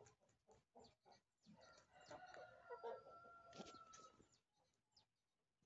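Faint rooster crow with a long held final note, about two seconds in; otherwise near silence.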